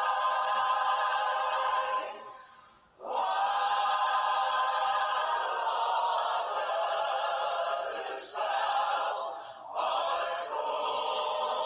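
Background choral music: voices holding sustained chords, dropping away briefly between phrases.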